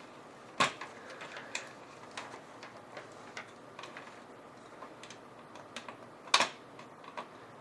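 Scattered light clicks and taps of cables and plastic connectors being handled and routed in the back of a computer case, with two sharper clicks, one just after the start and one about six seconds in.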